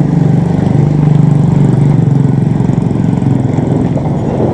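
Small motorcycle engine running steadily at low road speed.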